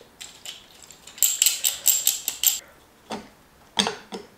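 Small metal parts of a drill arbor clinking and rattling as an abrasive stripping disc is fitted and tightened onto it: a quick run of metallic clicks about a second in, then two softer knocks near the end.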